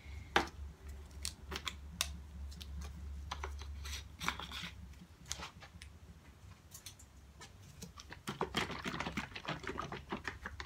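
Irregular clicks, taps and scrapes of a canister of Bar Keepers Friend cleanser being handled and opened with gloved hands, with a quick run of clicks about eight seconds in.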